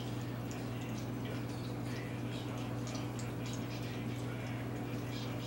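Three Yorkshire terrier puppies lapping and licking a soft snack from a small bowl: faint, irregular wet smacks and clicks over a steady low hum.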